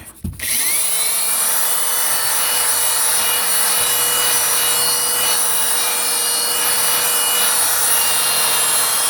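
Corded electric drill with a scrub-brush attachment starting up about half a second in and running steadily, its bristles scrubbing dirt and dog hair out of car carpet.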